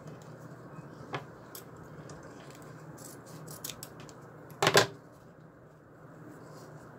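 Small handling sounds as ribbon is folded and set under a sewing machine's needle: a click about a second in, a few light ticks, and a short, louder clatter about two-thirds of the way through, over a steady low hum.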